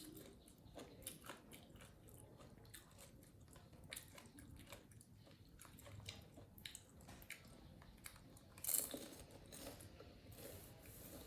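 Faint chewing and crunching of a monkey eating food: many small wet clicks and crunches. A louder brief rustle comes about nine seconds in.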